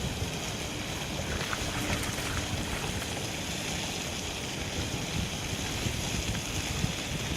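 Wind on the microphone outdoors: a steady rushing noise with a flickering low rumble.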